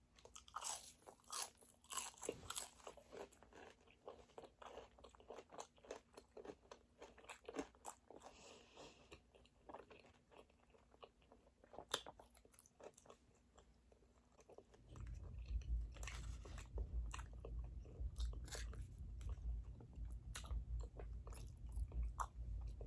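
Close-miked crunching, biting and chewing of chicken wings, with many small crisp crackles of the skin. A low rumble joins in about two-thirds of the way through.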